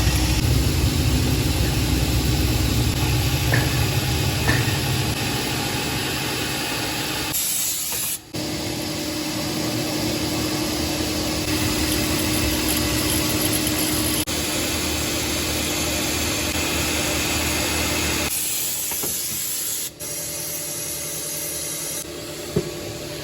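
Milling machine running and cutting metal: a steady mechanical hum under a broad hiss. The sound changes abruptly several times.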